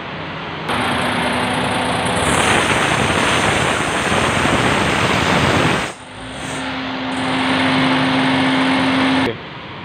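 Suzuki Alto 660's three-cylinder engine running with its loose fan belt making a squeaking 'choo choo' noise: the belt needs tightening at its adjuster. The sound starts about a second in, dips briefly about six seconds in, and cuts off suddenly near the end.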